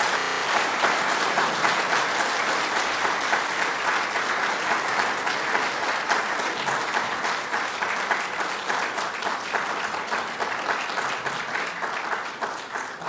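Audience applauding, many hands clapping in a dense, even patter that tapers off near the end.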